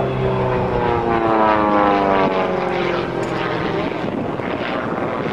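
SIAI-Marchetti SF.260's six-cylinder Lycoming piston engine and propeller droning as the aircraft pulls up into a steep climb. The pitch slides steadily lower over the first four seconds, then the sound turns rougher and more even.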